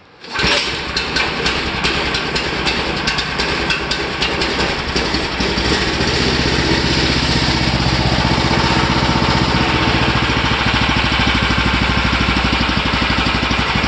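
Predator 420cc single-cylinder four-stroke engine catching on the first pull of the recoil starter and running, cold on choke with the throttle set about halfway. It runs unevenly with sharp irregular pops for the first several seconds, then settles into a steady, even run.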